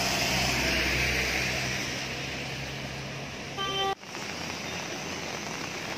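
Street traffic on a wet road: a vehicle engine running steadily under a hiss of tyres and rain, with a short car horn toot about three and a half seconds in.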